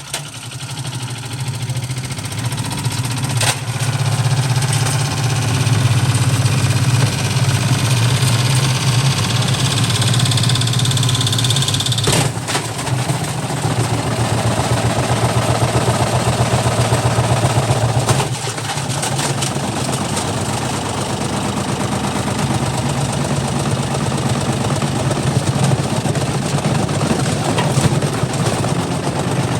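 Hotpoint FMG723 washing machine spinning its drum at maximum speed, a loud steady mechanical hum and rumble. It builds up over the first few seconds, then runs on, with a brief dip about eighteen seconds in.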